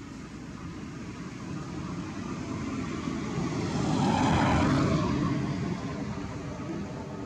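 Engine noise of something passing by, growing louder to a peak a little past the middle and then fading away.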